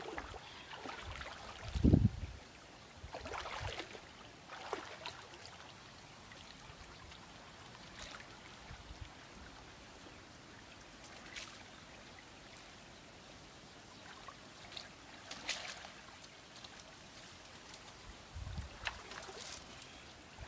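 Shallow water splashing and trickling as a person wades and handles a woven bamboo fish trap, with scattered small splashes and knocks. A loud low thump comes about two seconds in, and a weaker one near the end.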